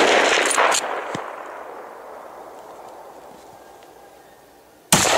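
Hunting rifle shots: a loud crack at the start with a second one under a second in, their echo rolling out and fading over about four seconds, then another loud shot near the end.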